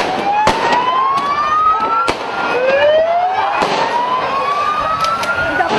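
Police vehicle siren wailing, its pitch climbing slowly twice, each rise lasting about two and a half seconds. Several sharp bangs cut through it.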